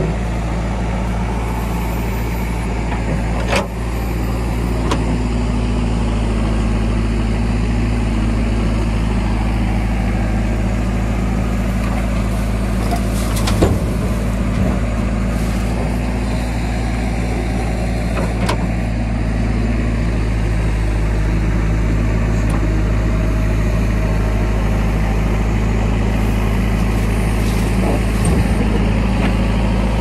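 JCB backhoe loader's diesel engine running steadily under hydraulic load as the bucket digs and swings, with three sharp knocks spread through.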